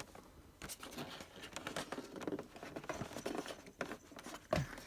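Small plastic figure accessories and packaging being handled: irregular light clicks and rustling, with a slightly sharper click near the end.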